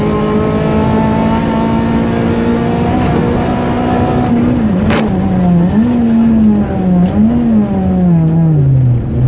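Rally car's engine heard from inside the cabin, held at steady high revs, then dipping and rising several times before winding down as the car slows for a tyre-barrel chicane. A sharp knock about five seconds in.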